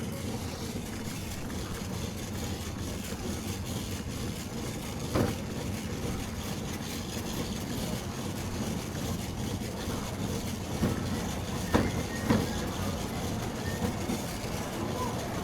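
Shopping cart being pushed, its wheels keeping up a steady rolling rattle, with a sharp knock about five seconds in and two more around twelve seconds in.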